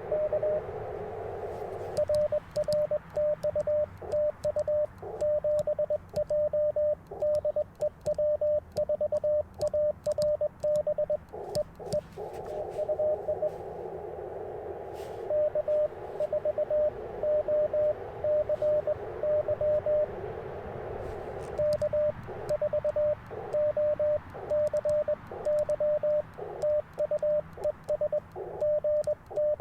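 Morse code from an Icom IC-705 transceiver on 30 meters: a single steady tone keyed in dits and dahs. Through most of it the operator sends on his paddles, with the sidetone, faint paddle clicks and silence between the elements. It opens, and again around the middle, with a stretch of band hiss through the narrow CW filter that carries another station's keyed signal.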